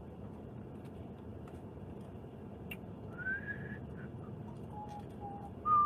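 A few short whistled notes over a steady low background hiss: one note sliding upward, two brief lower ones, then the loudest near the end.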